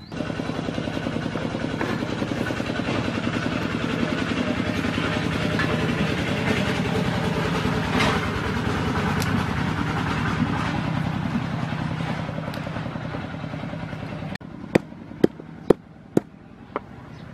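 Motor vehicle engine running steadily, swelling and then fading, and cutting off suddenly near the end. After it, about five sharp knocks on a wooden chopping board.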